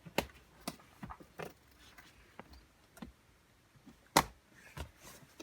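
Scattered light clicks and knocks, about a dozen in all, with one sharper knock about four seconds in.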